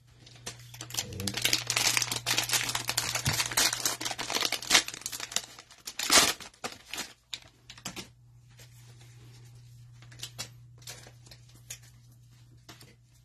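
Foil trading-card pack wrapper crinkling and being torn open, with one loud rip about six seconds in. After that, sparser light clicks and rustles as the cards are handled.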